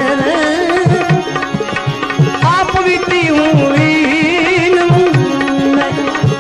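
Indian devotional bhajan music: tabla strokes keeping a quick rhythm under a melody line of ornamented, wavering notes.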